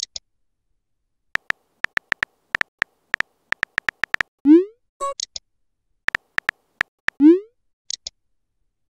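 Phone keyboard typing clicks in quick succession. Then comes a short rising pop as a chat message sends. A few more taps follow, and a second pop as a reply comes in, with brief high blips in between.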